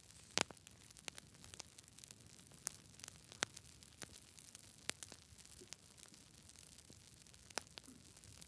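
Campfire crackling: irregular sharp pops and snaps over a low steady hiss, the loudest pop about half a second in.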